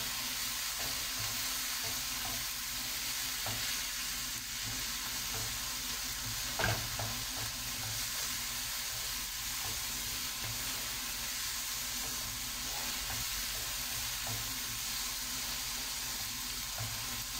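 Sliced mushrooms and onion sizzling in a frying pan while a wooden spoon stirs them, with light scrapes and taps of the spoon against the pan. One louder knock about six and a half seconds in.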